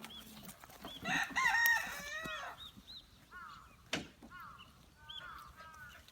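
A rooster crowing once, a loud call in several falling notes, with small birds chirping repeatedly in the background and a sharp click about four seconds in.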